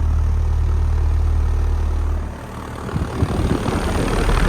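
2008 Carrier Base Series outdoor air-conditioner condensing unit running, its compressor wrapped in a sound blanket: a loud, steady low hum that drops away about two seconds in. After that comes a rougher, uneven rushing noise.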